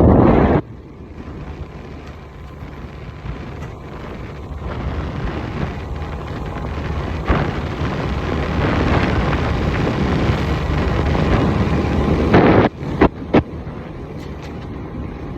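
Wind buffeting the microphone with a steady rush of noise, with loud low gusts right at the start and a few short blasts near the end.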